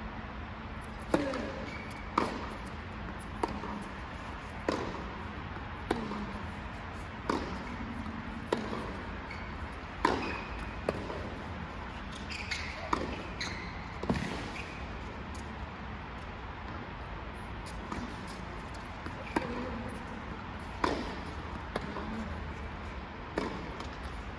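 Tennis rally: sharp pocks of a tennis ball struck by rackets and bouncing, about one every second and a bit, with a pause of several seconds in the middle before another run of hits.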